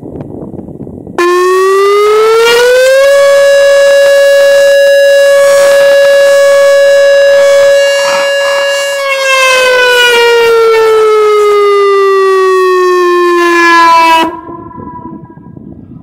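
Whelen WPS-2905 electronic outdoor warning siren sounding its short alert tone: it comes on suddenly about a second in, rises in pitch, holds one steady tone, then slides down in pitch and cuts off abruptly near the end, leaving a brief echo.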